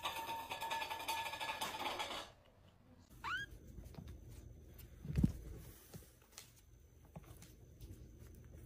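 Steel food bowl clinking and rattling on a hard floor as a kitten knocks it about, ending about two seconds in. Then a kitten gives one short mew that rises in pitch, and there is a dull thump about five seconds in.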